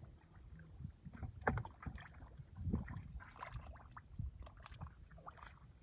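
Irregular sloshing and splashing of shallow muddy water worked by hand, with scattered small clicks and splashes.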